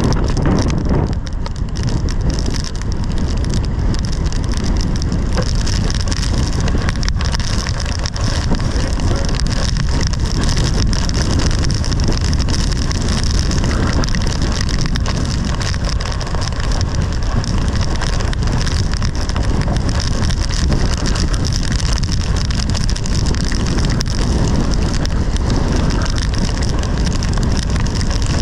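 Severe thunderstorm downpour: wind-driven rain and hail beating on a vehicle, with strong gusting wind, a dense steady noise with no letup.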